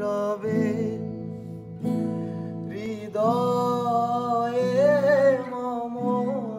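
A slow song of acoustic guitar and a singing voice. The voice holds long, wavering notes over the guitar chords, with a brief break about two seconds in.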